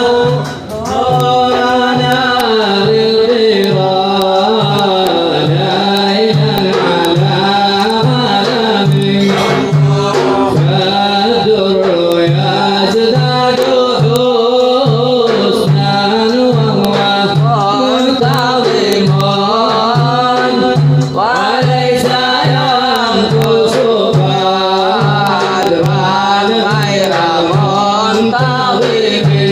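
Arabic devotional nasheed: a male voice sings a drawn-out, ornamented melody over a steady, regular low percussion beat.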